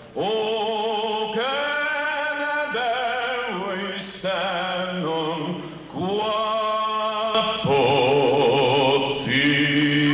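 Music with a solo singer holding long notes with a wavering vibrato, changing note every second or two.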